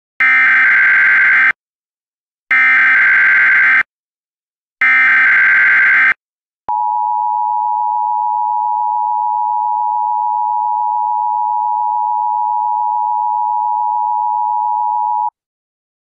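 Emergency Alert System header: three identical blasts of digital data tones, each a little over a second, then the steady attention tone for about eight and a half seconds before it cuts off. The header announces an Emergency Action Notification, a national alert.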